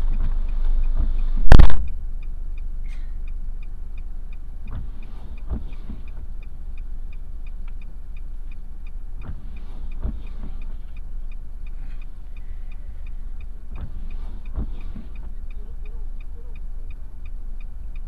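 A car door shutting with one loud thump about a second and a half in, then the stopped car idling, heard from inside the cabin, with a fast regular light ticking and a few faint knocks.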